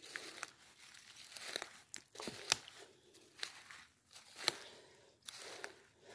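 Footsteps of boots walking over wet leaf litter and mud, a short crunch of leaves at each step, irregular at about one to two steps a second.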